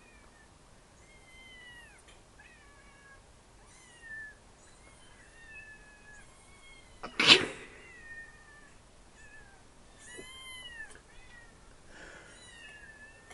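Recorded cats meowing, played back from a video through a speaker: a string of short, high meows, most falling in pitch, with a longer rising-and-falling meow near the end. About seven seconds in comes one short, loud, noisy burst, the loudest sound here.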